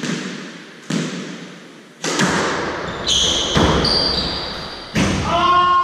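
A squash ball cracking off rackets and court walls, about one sharp hit a second, each with a short echo in the enclosed court. In the second half, shoes squeak on the wooden floor as the players move.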